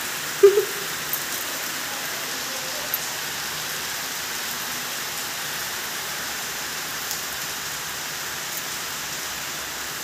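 Steady rain falling, an even hiss with a few faint ticks, and one brief louder sound about half a second in.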